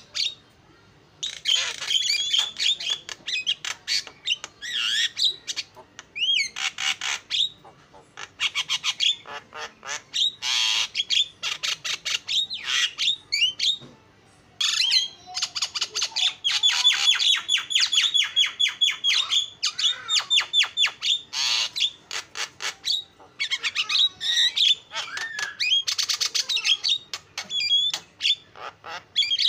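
Javan myna singing a long, busy song of fast rattling chatter mixed with gliding whistles, its phrases broken by brief pauses about a second in and about halfway through.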